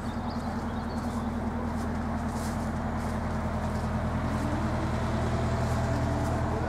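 A moored narrowboat's engine running steadily with a low, even hum, growing slightly louder about halfway through.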